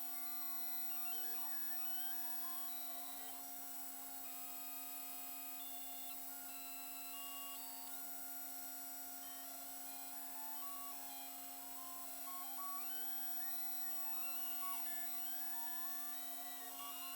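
Custom-built 5-axis CNC machine cutting a two-stroke cylinder sleeve: its axis motors whine, the pitch stepping and gliding up and down as the axes move, over a steady machine hum.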